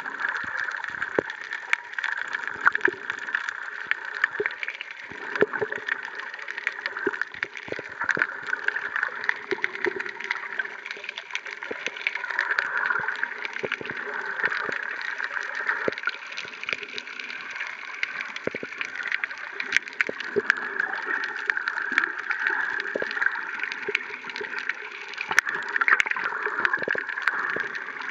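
Underwater ambience picked up by a submerged camera: a steady muffled water hiss with many scattered sharp clicks and crackles.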